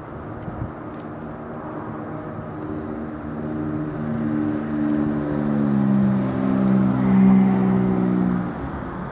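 An electric train's traction motors pulling away. The motor tone climbs in steps and grows louder, then cuts off shortly before the end.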